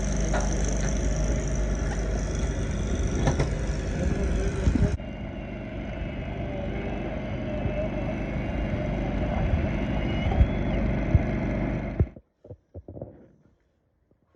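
An engine running steadily, typical of heavy construction machinery. It changes abruptly about five seconds in and cuts off suddenly near the end, after which only a few faint knocks remain.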